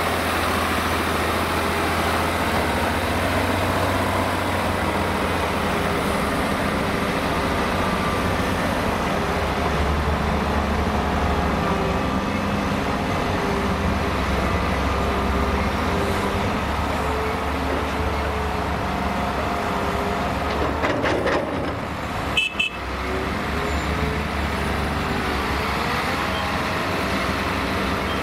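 Heavy diesel engines of a Volvo EC480D L crawler excavator and a Mercedes-Benz Actros tipper truck running steadily, with the truck driving off across the dirt. A few sharp knocks come about three-quarters of the way through.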